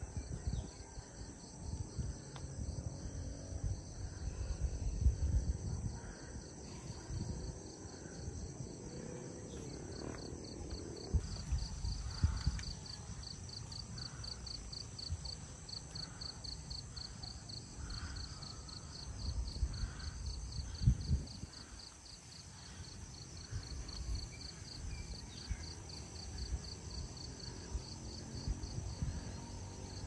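Insects chirring in a steady, high, finely pulsing drone that grows stronger about ten seconds in, over uneven low rumbling and a few dull knocks.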